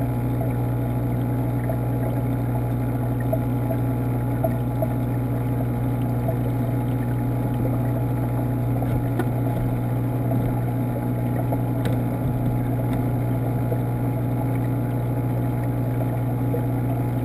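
Steady low hum of a saltwater aquarium's water pumps, picked up by a GoPro submerged in the tank, with faint water noise over it and the odd tiny tick.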